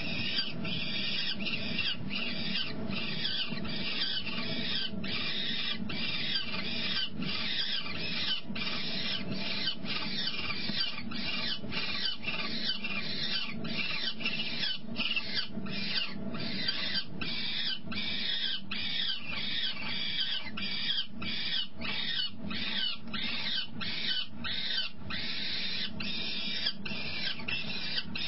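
Peregrine falcons calling in the nest box: an unbroken run of short, high-pitched calls about three a second, over a steady low hum.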